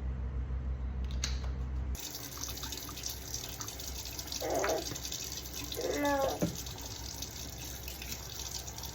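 Running water hissing steadily, as from a tap, after a low steady hum that stops about two seconds in. A small child's voice makes two short sounds near the middle.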